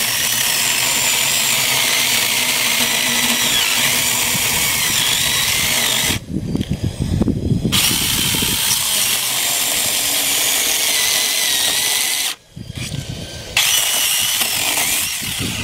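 Eiruaw 6-inch cordless mini chainsaw's 650-watt electric motor running as its chain cuts into a wooden stump, a steady high whine. It breaks off twice, about six seconds in and again about twelve seconds in, before running on.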